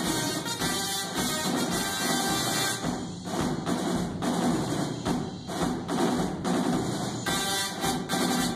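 Music with a drum-like percussive beat, together with the buzzing of Tesla coil spark discharges.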